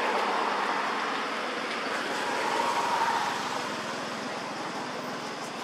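Steady outdoor background noise: an even rushing hiss with no distinct events, easing slightly near the end.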